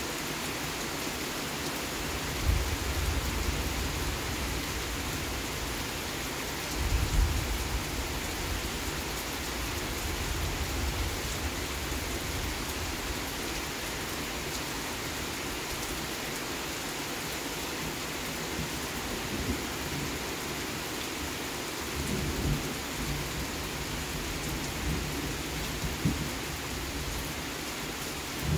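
Steady rain falling, with thunder rumbling several times: once about two and a half seconds in, louder around seven seconds, and again about twenty-two seconds in.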